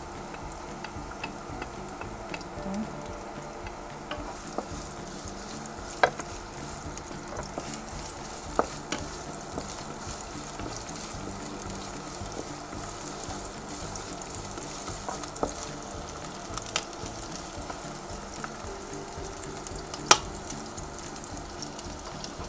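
Sliced onion and garlic sizzling in hot olive oil in a nonstick wok, stirred with a wooden spatula. A few sharp knocks of the spatula against the pan, the loudest near the end.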